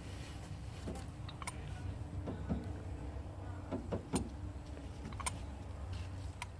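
Scattered metallic clicks and knocks, about a dozen, as car starter-motor parts are handled and fitted during reassembly, over a steady low hum.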